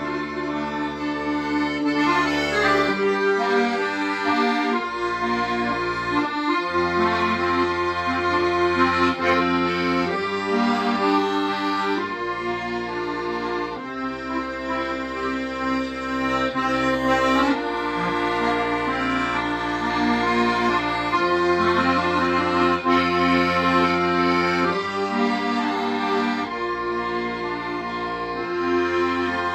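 Accordion playing a slow melody with sustained tones over held bass chords that change every few seconds.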